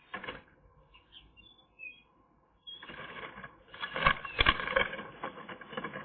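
Eurasian magpies shifting and flapping inside their twig nest: a brief rustle at the start, then about three seconds of rustling and scraping of feathers and wings against the twigs, loudest with a few sharp knocks around four seconds in. Faint high chirps sound about a second in.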